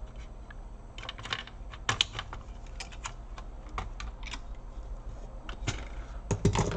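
Irregular small clicks and taps of plastic and metal laptop parts being handled as the cooling fan is taken out of the laptop base. A quick cluster of louder knocks comes near the end.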